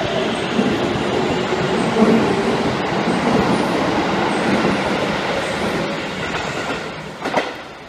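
Electric commuter train running past a station platform, with the steady noise of wheels on rail. It eases off after about six seconds, and a short knock comes near the end before the sound drops away.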